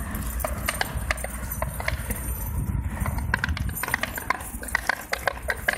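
A dog running on concrete with its leash dragging behind it: irregular clicks and light metallic clinks as the leash and its clasp bounce and scrape over the ground, along with the dog's claws on the concrete. The clicks come faster in the second half.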